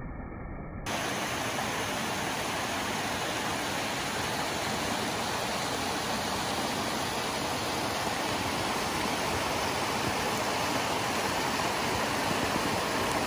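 Small woodland waterfalls splashing steadily over rock ledges into a shallow stream, an even rush of water. About a second in, the sound cuts abruptly to a fuller, brighter and slightly louder rush.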